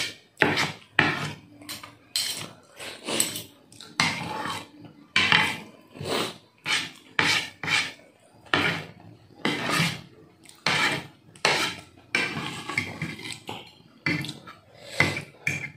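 Close-up eating of noodles: a steady run of short chewing and slurping sounds, one or two a second, with a fork and spoon clinking and scraping on a ceramic plate.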